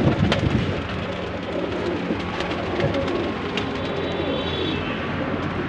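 A flock of domestic pigeons cooing together, a steady low murmur of many overlapping coos.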